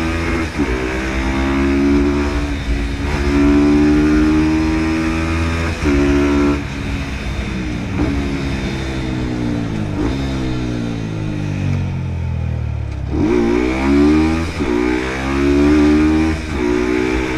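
Sport motorcycle engine accelerating hard through the gears, its pitch climbing and dropping back at each upshift several times in the first seven seconds. The revs then fall away for several seconds as the bike slows, and it accelerates through the gears again near the end.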